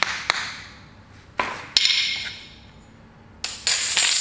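Hammer tapping a small nail into a plywood sheet, with the last two light blows at the start. Then a knock and a clatter as the metal hammer and steel rule are set down on the plywood, with a brief ringing, and a short rustling hiss near the end.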